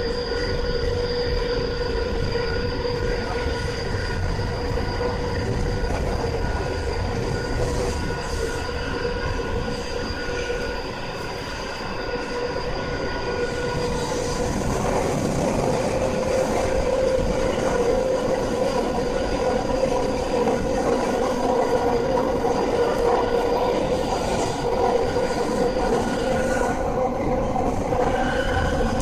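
Tokyu 5000 series subway car running in a tunnel, heard from inside: the Hitachi IGBT VVVF inverter gives a steady multi-tone whine over wheel and rail noise. The whole sound grows somewhat louder about halfway through.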